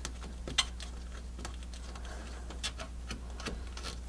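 Scattered small clicks and taps as a hand handles the studs and plastic stud caps on a rubber snowmobile track, the sharpest click about half a second in. A steady low hum runs underneath.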